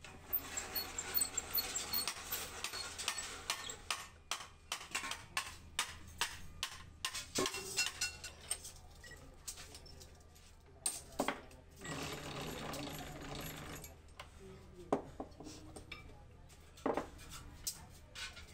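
Hand-cranked sheet-metal beading machine working a stainless steel cylinder: irregular metallic clinks, clicks and rattles of steel on steel, with denser stretches of rolling noise.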